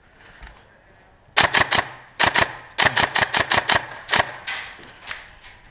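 Airsoft electric rifle, a Systema PTW M4A1, firing: sharp rapid clicking shots in several short bursts and a few single shots, starting about a second and a half in.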